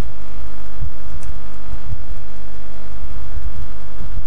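Steady electrical hum and low rumble in the sound system, with no speech.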